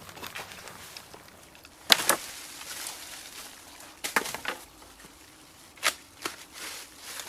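A hand tool striking wood: a handful of sharp knocks spaced irregularly, the loudest about two seconds in.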